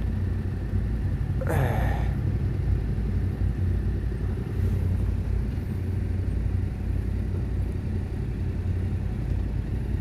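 Motorcycle engines idling as a steady low rumble, with a brief higher-pitched sound about one and a half seconds in.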